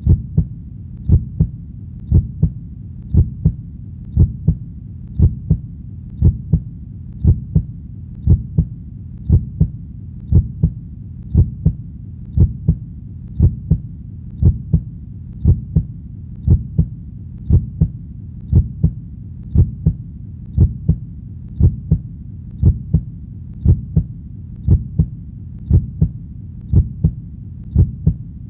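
Heartbeat pulsing steadily in paired lub-dub thumps, about one beat a second, over a steady low rumble.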